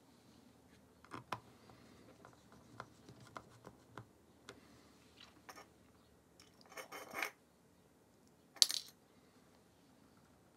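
Tiny metal screws and a precision screwdriver being handled while a camera is put back together: scattered small clicks and taps, a short rattle of screws about six and a half seconds in, then one sharp metallic clink, the loudest sound, about two seconds later.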